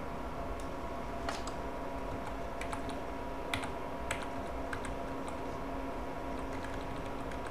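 Faint, irregular clicking from computer input, a dozen or so separate clicks unevenly spaced, over a steady background hum.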